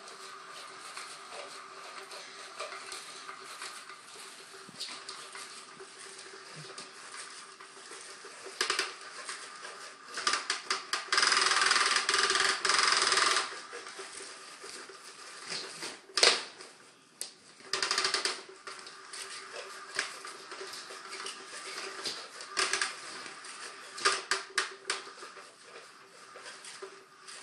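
Small motor of a battery-operated cat toy running with a steady hum while its wand circles and rattles under the fabric cover. A louder stretch of rattling lasts about two seconds near the middle, and sharp taps come now and then.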